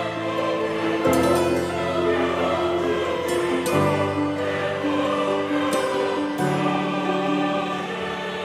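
Background music: slow, held choral-sounding chords that change every two to three seconds.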